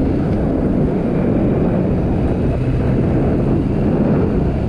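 Motorcycle running at a steady cruising speed of about 45 km/h, its engine mixed with wind noise on the microphone.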